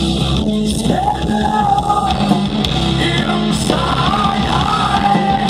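A hard rock band playing live through a concert PA, heard from the crowd: distorted guitars, bass and drums under a shouted, sung vocal. The vocal holds long notes that swoop up into pitch.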